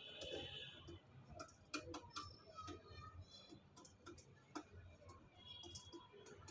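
Pigeon pecking rice and seeds from a shallow metal pan: light, irregular clicks of its beak on the grain and the pan.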